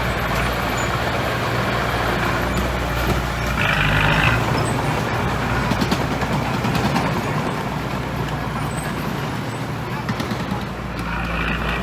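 Heavy diesel construction machinery running steadily, with a low engine drone. Short hisses come about four seconds in and again near the end.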